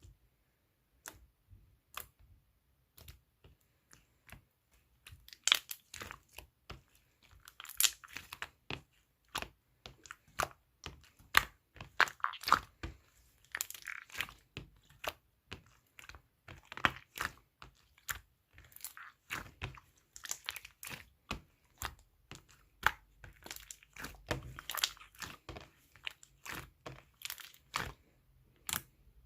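Slime being pressed, poked and stretched by hand, making irregular sharp clicks, pops and crackling squishes.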